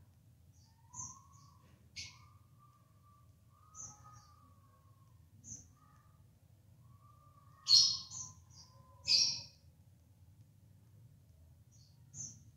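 Budgerigars chirping: scattered short, high chirps, the loudest pair about eight and nine seconds in, with softer drawn-out calls between them.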